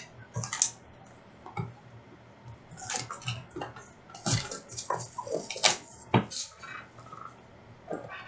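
Trading card packaging and cards being handled: an irregular run of short clicks, taps and crinkling, busiest in the middle.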